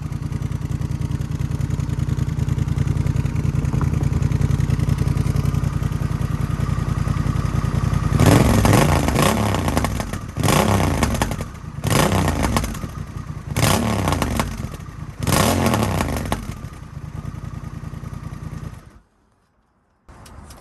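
Honda Rebel 1100's parallel-twin engine idling through a cheap aftermarket muffler fitted with an inner silencer baffle, then revved in five quick throttle blips before settling back to idle. The sound cuts off abruptly near the end.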